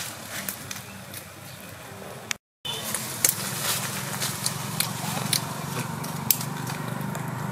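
Wood embers crackling with scattered small pops under fish roasting on bamboo skewers. About two and a half seconds in, the sound drops out for a moment and gives way to a louder, steadier outdoor background with scattered clicks and rustles as a leafy branch is handled.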